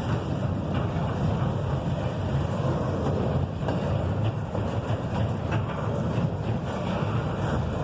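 Freight train cars rolling past: a steady low rumble of steel wheels on rail with scattered faint clicks, and wind buffeting the microphone.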